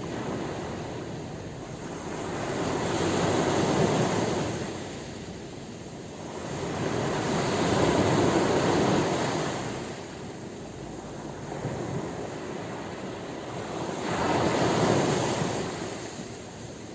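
Ocean waves breaking and washing up the shore, three swells of surf rising and falling about five to six seconds apart.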